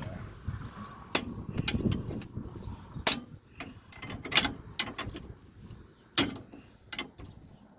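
Hammer and chisel striking the worn-out outer wheel-bearing race of a 1966 Oldsmobile rear axle housing: about a dozen sharp metal knocks at irregular intervals, the hardest about a second, three seconds and six seconds in, as the stuck race is driven at to make it pop out.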